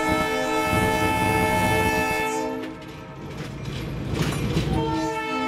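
Budd RDC railcar's multi-note air horn sounding a long chord that stops about two and a half seconds in, then a second long blast starting near the end, over the low rumble of the railcar.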